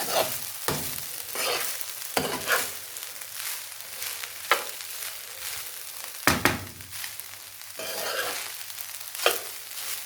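Fried rice sizzling in a pot on the fire while a utensil turns it, scraping and knocking against the pot every second or two.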